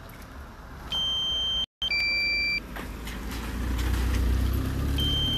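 Drone remote controller's low-battery warning beeps: a short high beep about a second in, then a two-tone beep about two seconds in. From about three seconds in a low hum swells and holds, its pitch creeping slowly upward.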